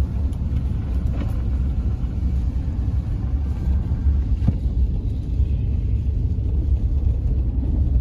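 Steady low rumble of a car driving along a snow-covered road, heard from inside the cabin.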